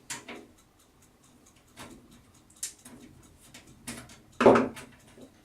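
Scattered light clicks and knocks of hands working a bent, stuck thumbscrew out of a metal PC case's power-supply bracket, with one louder knock about four and a half seconds in.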